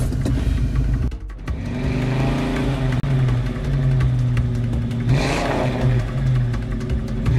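Car engine running under acceleration, holding a steady hum with some revving, and a louder rush about five seconds in as the car passes close by.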